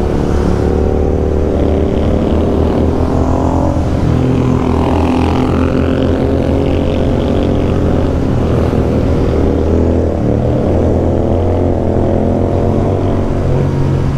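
Royal Enfield 650 parallel-twin motorcycle engines with aftermarket exhausts, running steadily at cruising revs during a ride. The pitch rises and falls only slightly.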